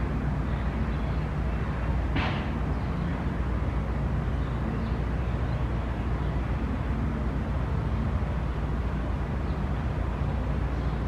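Steady low outdoor background rumble, with one short, brief rustle-like burst about two seconds in.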